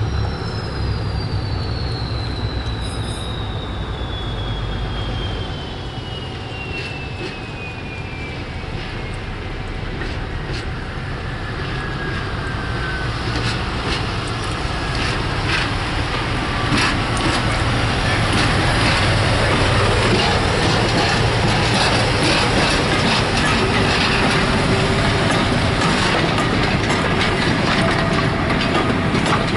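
A diesel locomotive hauls a train of coaches slowly past, its engine giving a steady low drone. Wheels click over the rail joints, louder and more often from about halfway through as the coaches roll by. Over the first dozen seconds a thin high tone slowly falls in pitch.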